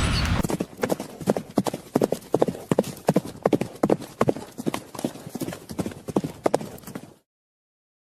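A quick, uneven run of sharp knocks or taps, several a second, that stops suddenly about seven seconds in.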